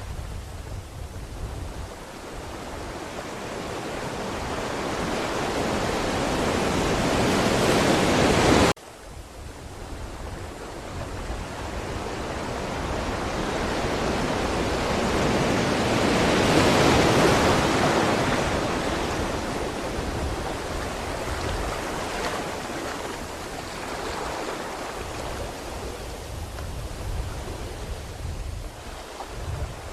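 Ocean surf: waves building and washing in as long swells of rushing water. The first swell breaks off abruptly about nine seconds in, and a second builds to a peak in the middle and slowly recedes.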